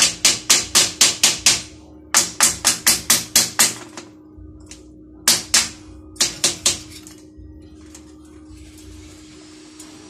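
Welding slag hammer chipping slag off a fresh stick weld on a square-tube metal door frame. Sharp metal-on-metal strikes come in quick runs of about five a second, two long runs and then two short ones, and stop about seven seconds in.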